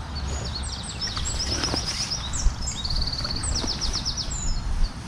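Small songbird singing a string of quick, high trilled phrases over a steady low wind rumble on the microphone, with one brief knock about halfway through.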